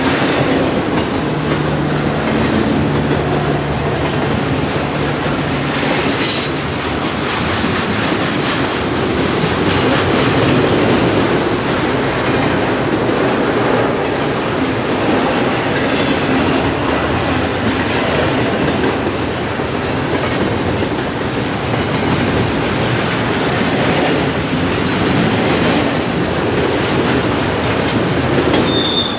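Railway cars rolling past steadily with a constant rumble and the clatter of wheels over the rails. A brief high-pitched wheel squeal comes in near the end.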